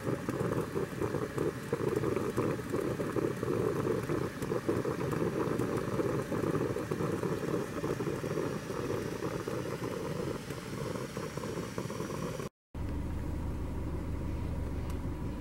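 Enamelware camp coffee percolator perking on the boil, bubbling and gurgling steadily in fast irregular spurts. About twelve seconds in it cuts off, and after a short gap a quieter, steady low rumbling background follows.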